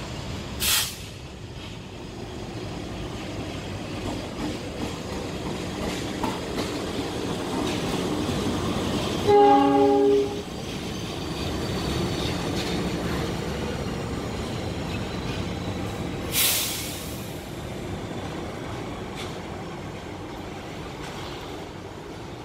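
CC 206 diesel-electric locomotive running as it shunts past, with a steady engine rumble. It sounds its horn once, a chord of several tones about a second long, near the middle. Two short sharp hisses come, one about a second in and one about two-thirds of the way through.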